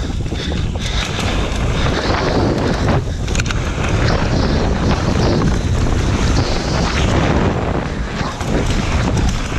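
Wind rushing over the camera microphone at riding speed, with the rumble and rattle of a downhill mountain bike's tyres and frame over rough ground and a wooden slatted boardwalk, and scattered knocks from the bumps.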